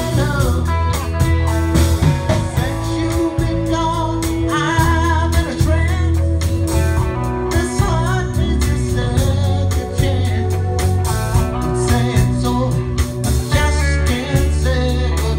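Live rock band playing amplified through a PA: electric guitars and drums, with a singer's voice over them.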